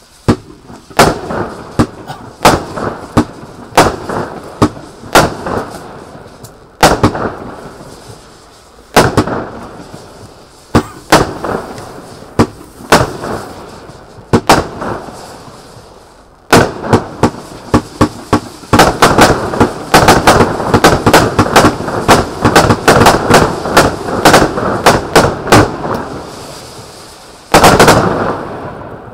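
Frigg consumer fireworks cake firing: sharp shots about once a second through the first half, each trailing off in a short hiss. Then from a little past halfway comes a fast volley of many shots, with a loud stretch of rushing noise near the end.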